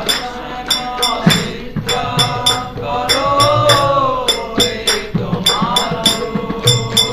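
Devotional kirtan music in the instrumental break between sung lines: small hand cymbals clink in a steady rhythm over drum strokes and a wavering melody line.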